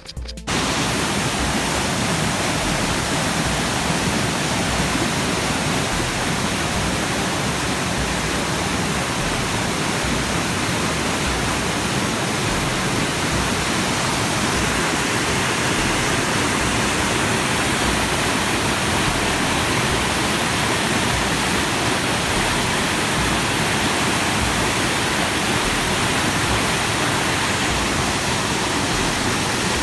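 Loud, steady rushing of a small waterfall running full with monsoon water, cutting in abruptly at the start. It is loud enough to drown out a speaking voice.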